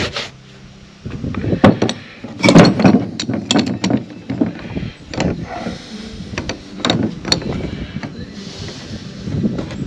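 Metal clicks and knocks of a split bearing separator being worked into place around a driveshaft's center support (carrier) bearing on a plywood bench. The knocks come irregularly, starting about a second in.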